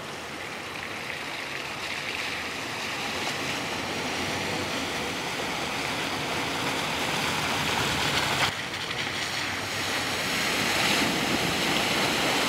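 Steady rush of running stream water, slowly growing louder, with a brief break about eight and a half seconds in.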